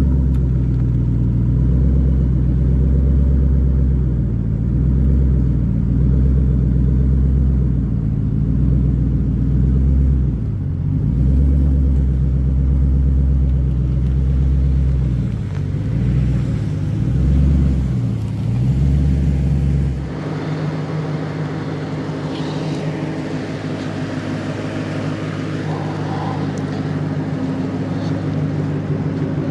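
Ford Mustang's overhead-cam V8 running at low revs, with a deep, uneven rumble. About twenty seconds in the deep rumble drops away suddenly, leaving a lighter, steadier engine sound.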